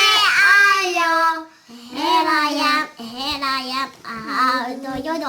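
A child singing in a high voice: a long held, wavering note, then several shorter sung phrases with brief pauses between them.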